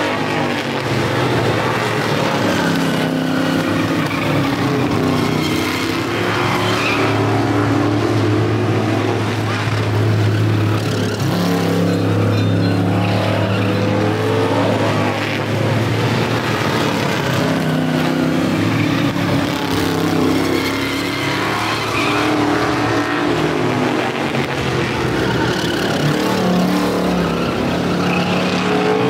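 Several street stock race cars' engines running hard on an oval short track, the pitch rising and falling as the cars come through the turn and pass by.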